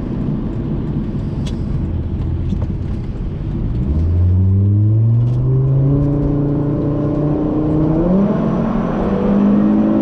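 Tuned 2004 Volvo S60R's turbocharged inline five-cylinder with a straight-piped downpipe, pulling under acceleration. It starts as a low steady drone; from about four seconds in the pitch climbs steadily, then steps up just after eight seconds and holds. It runs cleanly, with no misfires on freshly fitted remanufactured injectors.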